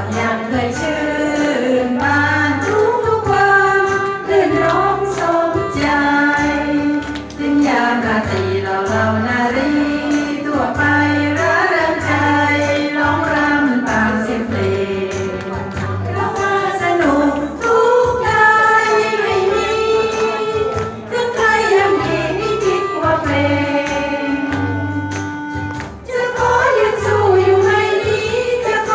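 A woman singing a Thai song into a handheld microphone over a karaoke backing track with a steady bass beat.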